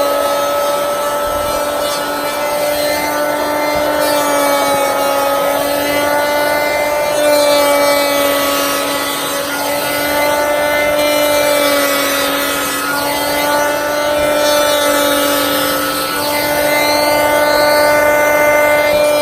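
Bosch PL1632 electric hand planer running and cutting rough-sawn mahogany: a steady motor-and-cutterhead whine whose pitch sags a little at moments as the blades take load.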